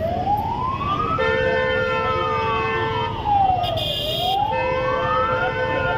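Ambulance siren wailing in a slow rise and fall, about four seconds per cycle, over a low rumble of engines. A steady horn-like tone blares twice, about two seconds each time.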